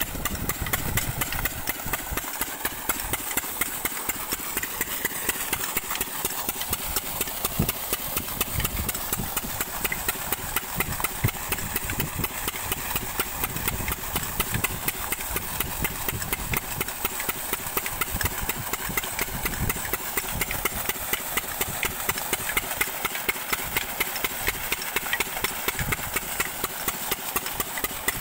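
Single-cylinder diesel engine of a farm water pump set running steadily, its firing an even knock at roughly three beats a second, with water gushing from the pump's outlet pipe underneath.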